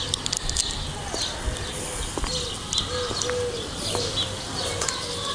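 Small birds chirping, with a pigeon cooing in a run of short, low notes through the middle.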